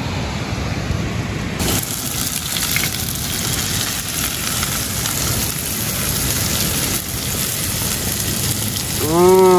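Chopped spring onions sizzling as they flash-fry in hot oil in a pan on a portable gas stove: a steady frying hiss. Near the end a brief vocal sound rises and falls in pitch.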